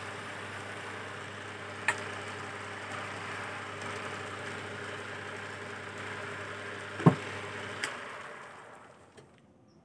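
Belt-driven wood lathe running with a steady motor hum, with a few sharp knocks, the loudest about seven seconds in. About eight seconds in it is switched off and winds down to near silence.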